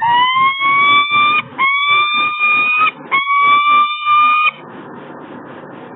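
Peregrine falcon giving three long calls in a row, each about a second and a half and rising slightly in pitch, over a steady rushing background noise.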